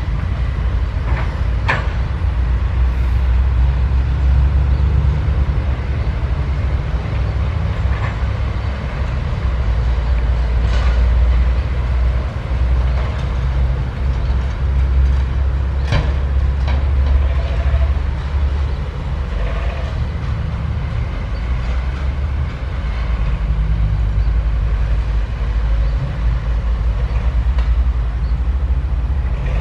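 Excavator's diesel engine running under load while digging, a deep steady drone that swells and eases with the work, with a few short sharp knocks.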